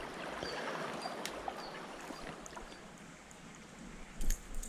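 Steady rush of river water flowing, with a few faint ticks and a short sharp knock near the end.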